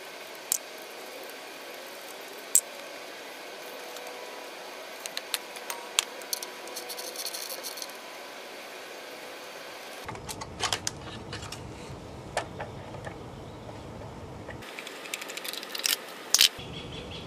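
Scattered sharp clicks and light metallic rattles of hand work on the high-voltage cable connectors of an electric-car drive unit, over a steady faint hum. A low rumble joins in about ten seconds in.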